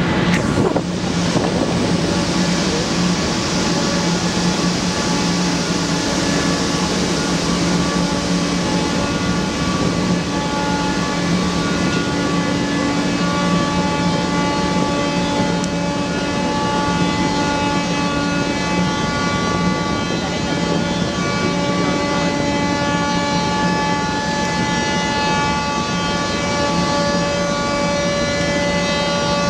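Several ship and tug horns sounding together in long, overlapping held blasts at different pitches for the rig's launch, some dropping out and others joining midway. Over them, the rush of water churned up by the launching hull is stronger in the first few seconds.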